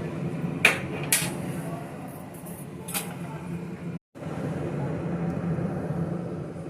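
A few sharp clinks of metal kitchen utensils over a steady low hum, with two clinks close together about a second in and another near the middle.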